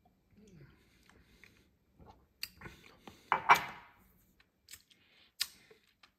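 Glass tumblers and a bourbon bottle being handled on a stone countertop: scattered clicks and knocks, the loudest a short clattering cluster about three and a half seconds in.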